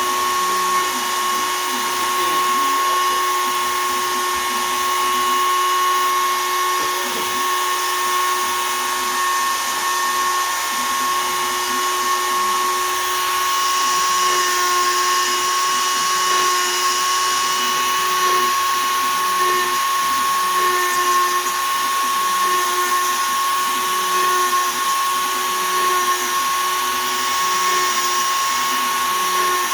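Shapeoko 3 XL CNC router's spindle running at 20,000 rpm with a 1/8 in two-flute downcut spiral bit, cutting poplar: a steady high-pitched whine over the hiss of the cut.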